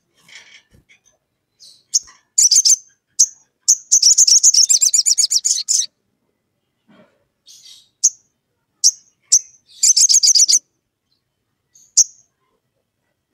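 Olive-backed sunbird calling: sharp, high single chirps between two fast rattling trills, the first trill about two seconds long. It is the in-full-voice call used to challenge a rival sunbird.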